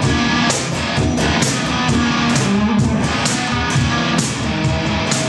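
Guitar strummed loudly in a steady rhythm, about two strokes a second.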